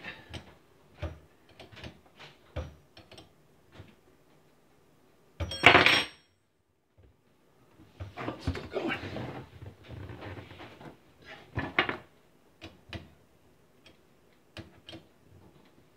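Scattered clicks and knocks of a wrench and hands on the dishwasher water-line fitting and pipes under a kitchen sink, with one louder clatter about six seconds in and a busier run of knocks a couple of seconds later.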